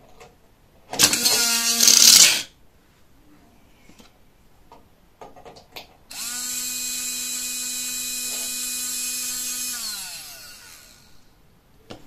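The small brushed DC motor (RS385) of a cordless hand vacuum is test-run in short bursts. A brief loud burst comes about a second in, then a steady whine for about four seconds that winds down in pitch as the motor coasts to a stop.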